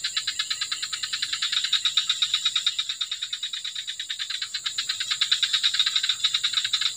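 A frog calling in a rapid, even pulsing trill, about eight or nine pulses a second, with a steady high insect drone behind it.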